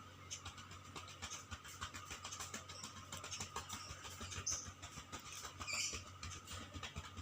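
Faint rustling and small handling noises of hands vibrating the patient's back over her clothing during chest physiotherapy, with a couple of short high chirps about halfway through.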